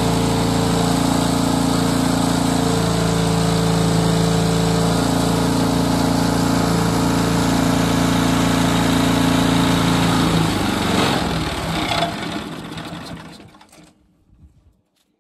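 Log splitter's 8-hp Briggs & Stratton engine running steadily, then shut off about ten seconds in and winding down to a stop over a few seconds.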